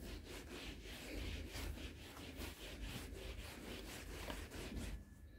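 Cloth rubbed in quick back-and-forth strokes over a quilted fabric mattress, making faint swishing at about three strokes a second, then stopping near the end. The cloth is wrapped tightly round a pan lid, whose knob serves as the handle.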